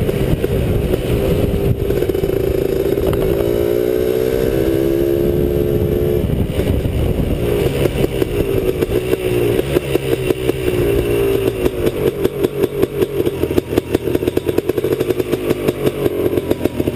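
Honda 250R's two-stroke single-cylinder engine running under way on a dirt trail, its pitch climbing as it accelerates in the first few seconds and then holding steady. In the second half the sound turns into a rapid, choppy pulsing.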